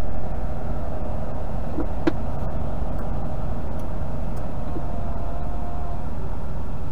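Steady low rumble of an idling semi-truck diesel engine, heard from inside the cab, with one faint click about two seconds in.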